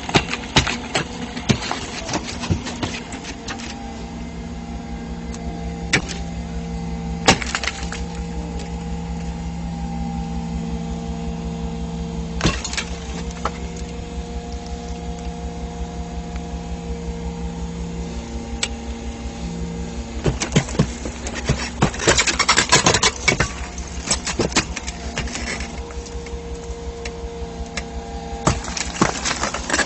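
Hydraulic pile breaker at work: an engine and hydraulics run steadily under load while the chisels squeeze a concrete pile. Sharp cracks of the concrete breaking come singly in the first half, then as a dense clatter about two-thirds through and again near the end.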